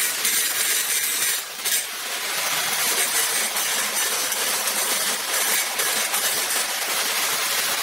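Angle grinder grinding down fresh weld seams on a metal-tube chair frame: a steady, harsh grinding noise that eases for a moment about one and a half seconds in.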